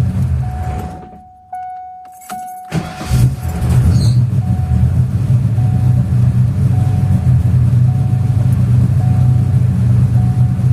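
Car engine idling, then switched off; a couple of short electronic beeps sound while it is off, and about two and a half seconds in it is restarted, catching at once and settling into a steady idle with no starter clicking, a sign that the redone ground connections cured the no-start fault.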